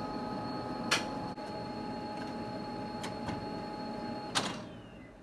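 Canon imagePROGRAF 4100 large-format printer feeding a paper roll: a steady motor whine with a sharp click about a second in and another near the end, after which the feed mechanism stops.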